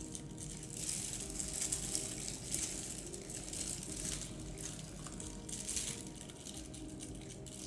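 Disposable plastic gloves rustling and crinkling in short bursts as hands press salami slices into the cups of a metal cupcake pan, over faint background music.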